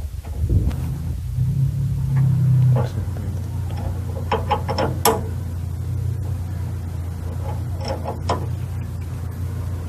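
Steady low machine hum that swells about half a second in, with a few sharp metallic clicks from hand tools around the middle and again near the end.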